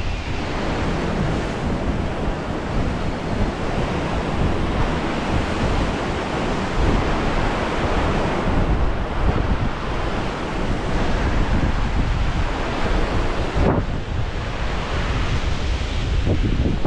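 Ocean surf surging and washing through the gaps and gutters of sandstone rock ledges, with wind buffeting the microphone.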